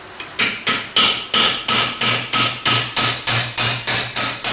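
Hammer blows on metal, a steady run of about four strikes a second, each with a brief metallic ring: knocking the core plugs (freeze plugs) out of a Toyota 2C diesel's cast-iron engine block.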